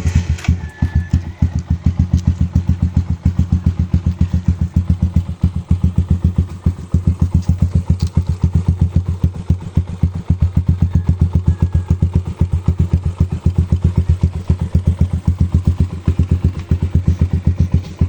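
Kawasaki Rouser LS135 single-cylinder four-stroke engine idling through a 51 mm Akrapovic slant-type slip-on exhaust with the silencer insert removed: a loud, steady, evenly spaced exhaust beat.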